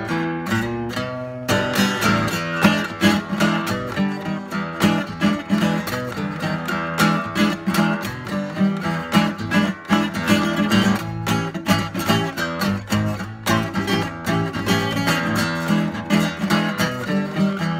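Horse HAG 1 acoustic guitar played with a pick: a few picked notes ringing out, then strummed chords from about a second and a half in.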